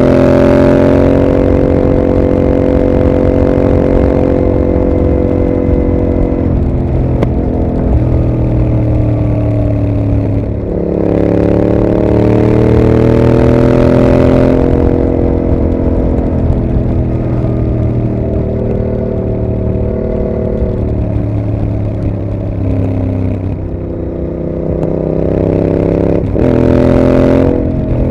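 2021 Yamaha MT-07's 689 cc parallel-twin engine through a Mivv GP aftermarket exhaust, ridden under throttle. The pitch climbs and falls through gear changes, with a strong pull in the middle and a short sharp throttle burst near the end.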